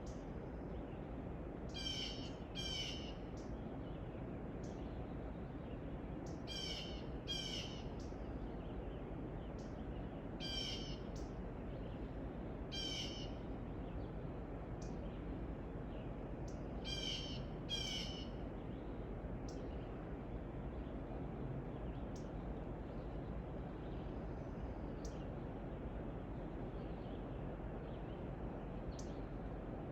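A bird giving short calls, mostly in pairs, every few seconds, over steady background noise; after about 20 seconds only faint single chirps are left.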